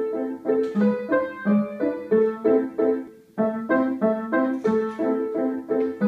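Yamaha upright piano played by a young beginner: a simple two-handed piece of short notes in a steady rhythm, with a brief break about three seconds in.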